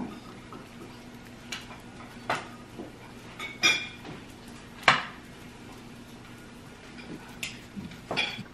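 Kitchen clatter: a handful of separate sharp clinks and knocks of dishes, utensils and a small glass jar on the counter, some with a brief ring, the loudest about five seconds in.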